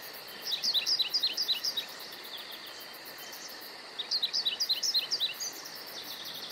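A songbird singing two phrases of rapid, repeated high notes, each note slurring downward, about three seconds apart. A steady high insect hiss lies underneath.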